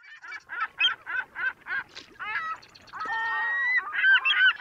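Birds calling: a quick run of harsh repeated calls, about three a second, then several birds calling over one another.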